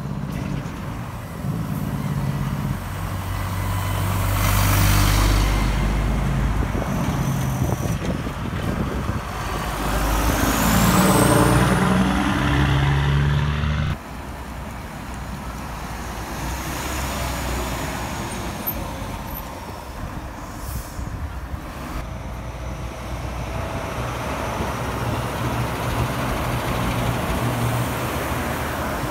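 Heavy diesel trucks, among them a truck-and-trailer unit and a loaded logging truck and trailer, driving past one after another with engines running and tyre noise on the road, loudest as each goes by close. The passes break off abruptly from one to the next.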